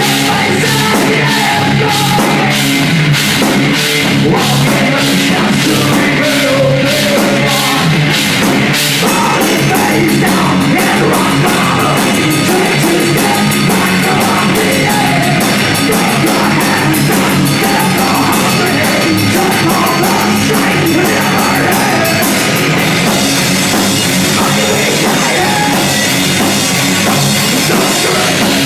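A heavy metal band playing live, with loud distorted rock guitars and a drum kit. The drumming grows denser and faster about nine seconds in.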